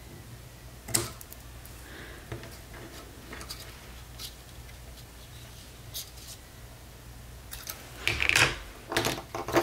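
A snip of scissors cutting a paper flower border strip about a second in, then scattered light clicks and taps of paper and tools on a cutting mat, with louder rustling of paper being handled near the end.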